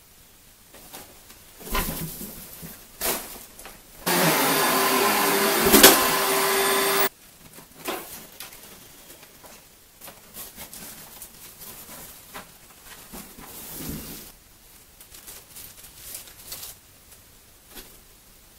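Upright vacuum cleaner switched on, running with a steady hum and rush for about three seconds, then cut off abruptly. Before it there are a couple of knocks, and afterwards light clattering and rustling of things being handled.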